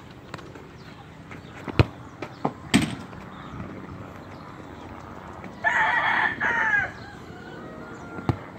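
A rooster crows once, about six seconds in, in a drawn-out call with a falling end; it is the loudest sound. Earlier come two sharp thuds of a soccer ball being kicked.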